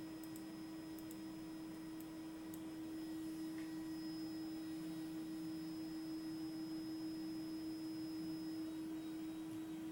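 Velleman K8200 3D printer giving off a steady electrical hum, one pure tone with a fainter buzz under it, getting slightly louder about three seconds in.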